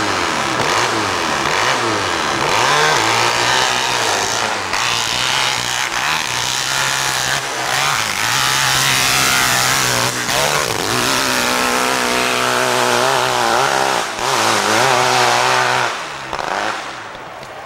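Hillclimb racing motorcycle engine at full throttle as it climbs a steep dirt hill, its revs rising and falling over and over. The engine falls off sharply about a second and a half before the end.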